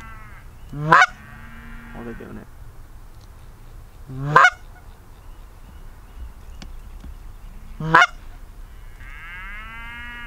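Geese honking: four loud, sharp, rising honks about three and a half seconds apart, with longer drawn-out calls between them.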